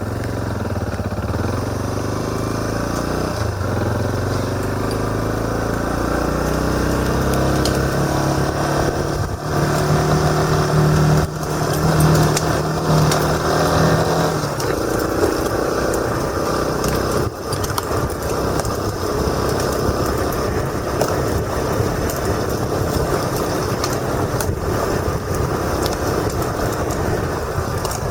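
Motorcycle engine accelerating along a road, its pitch rising over the first fifteen seconds or so, then running steadily with wind noise on the helmet-mounted camera.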